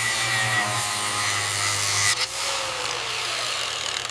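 Handheld electric polisher buffing the metal inlet lip of a jet engine nacelle: a steady whirring and rubbing, its low hum dropping out about two seconds in.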